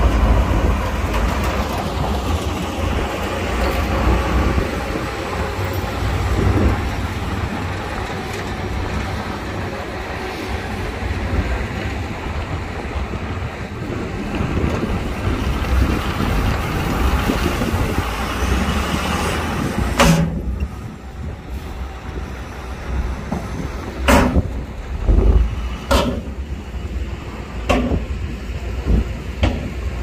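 Diesel engine of heavy earthmoving machinery running under load. About two-thirds of the way through the sound drops, and a few sharp knocks follow a couple of seconds apart.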